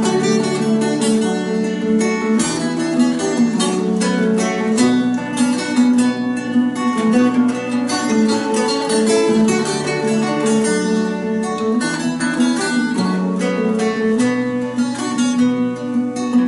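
Instrumental break of a bard song played on several acoustic guitars, strumming and picking chords together in a steady rhythm.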